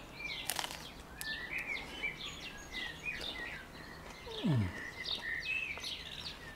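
Small songbirds chirping and twittering steadily in the background, with a sharp crunch about half a second in as the crisp, thin flammkuchen crust is bitten. Around four and a half seconds in there is a short falling 'mmm'.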